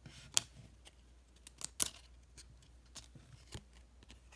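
Baseball cards being flipped through by hand: scattered short, crisp clicks and brief slides of card stock against card stock, the sharpest about half a second in and again near the two-second mark.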